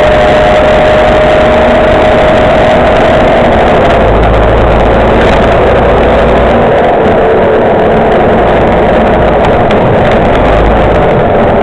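MCW Metrobus Mk2 double-decker bus heard from inside the lower deck while under way, its engine and drivetrain running loudly. A strong steady whine sinks slightly in pitch over the first few seconds, and a deep drone comes in about four seconds in.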